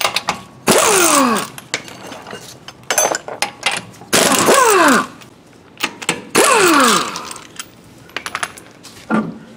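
Impact wrench zipping off 19 mm wheel lug nuts: three short bursts of hammering, each under a second, with the pitch falling through each burst, and small clicks and clinks between them.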